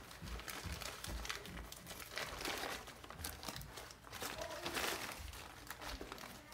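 Cuben fiber fabric crinkling in the hands as a rain-pant cuff is folded down and creased, in uneven spells of crisp crackling that grow louder about two and a half seconds in and again near five seconds.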